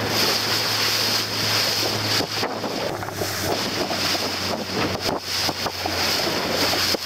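A boat's motor running with a steady drone, with wind buffeting the microphone and water rushing past the hull.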